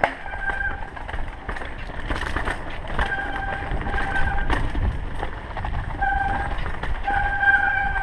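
Mountain bike riding down rough dirt singletrack: rattling and rumble of the bike over bumps and roots, with a steady brake squeal that comes and goes four or five times as the brakes are applied on the descent.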